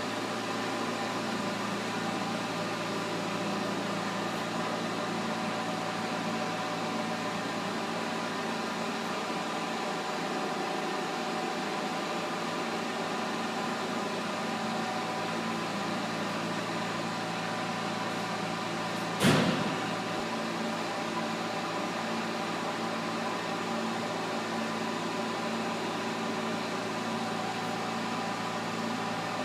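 Pinacho S-90/180 centre lathe running, a steady mechanical hum with several fixed tones. A single sharp knock about two-thirds of the way through.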